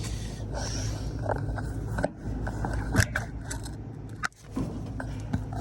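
Scraping and clicking sounds, most likely from handling the camera close to a unit, with the sharpest click about three seconds in, over a steady low hum.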